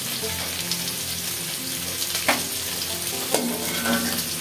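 Rohu fish head sizzling as it fries in hot mustard oil in a metal karahi, with a steel spatula clicking against the pan twice.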